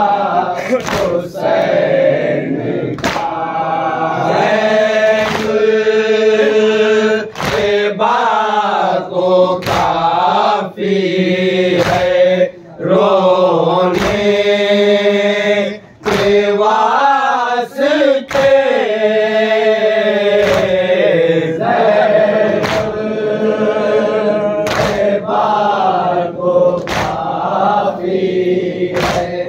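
A group of men chanting a Shia nauha (Muharram mourning lament) in unison, led by reciters at a microphone. Sharp slaps of hands striking chests in matam land every second or two.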